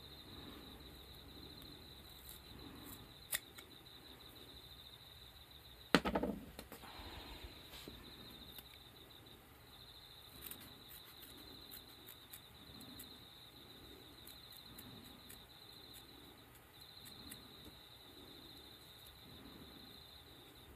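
Scissors snipping bowling-shoe sole pads, heard as scattered sharp clicks, with one loud knock about six seconds in. A steady high chirping of crickets runs underneath.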